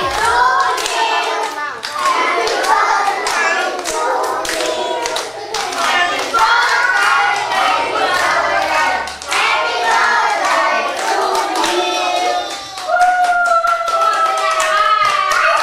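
A group of young children singing together and clapping along, with a long drawn-out sung note near the end.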